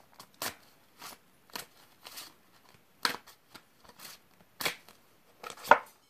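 A deck of tarot cards being shuffled and handled, giving a string of irregular crisp card snaps and taps. The loudest come about three seconds in and near the end.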